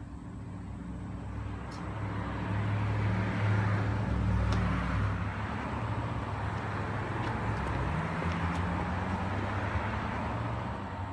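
A car running, its engine hum and tyre noise swelling over the first few seconds and then holding steady, with a slight rise in engine pitch near the end.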